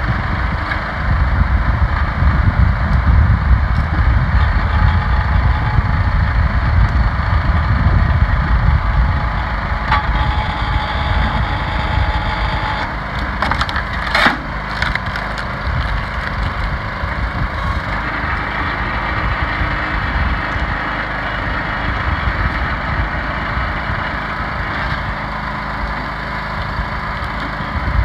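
Engine of a hydraulic log splitter running steadily while the ram forces rounds through the wedge, the wood creaking and splitting apart, with a few sharp cracks about halfway through.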